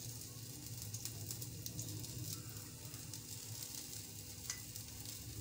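Marinated meat skewers, freshly brushed with oil, sizzling steadily in a hot ridged grill pan, with scattered faint crackles and one sharper tick about four and a half seconds in.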